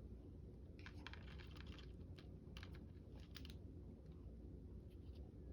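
Near silence: faint, scattered clicks and rustles of paper being handled, over a low steady hum. They are busiest from about one to two seconds in, with another cluster a little past three seconds.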